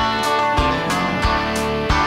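Background music: a guitar song with a steady beat, about three beats every two seconds.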